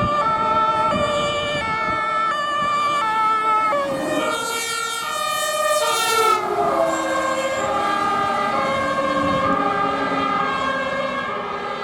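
German fire engines' two-tone sirens (Martinshorn) alternating between two pitches about every half second, with a second siren overlapping from about four seconds in. The pitch slides down around six seconds in, and a truck engine rumbles underneath.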